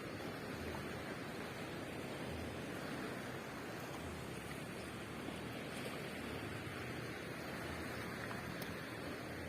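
Steady wash of ocean surf on the beach, an even rushing noise with no clear breaks.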